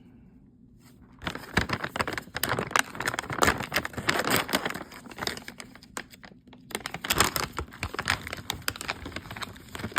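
Crinkling of a plastic snack bag of Parmesan crisps being opened and handled. It starts about a second in and pauses briefly around six seconds in.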